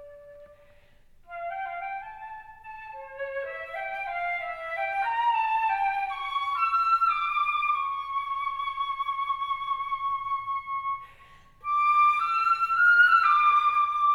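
Solo flute playing a slow melody: after a short pause it climbs through a run of notes to one long held note, then, after a brief gap, starts a new phrase.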